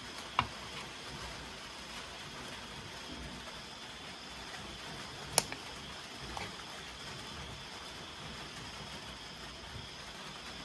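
Steady rain hiss, broken by a few sharp clicks such as drips or knocks: one about half a second in, the loudest about five seconds in, and a weaker one a second later.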